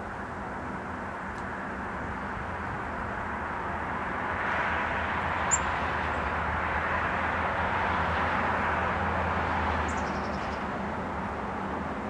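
Outdoor ambience with a steady distant engine rumble that swells from about four seconds in and fades again near ten seconds, like a vehicle passing. About midway there is one short, sharp high click, and near the end a quick run of faint, high, falling bird chirps.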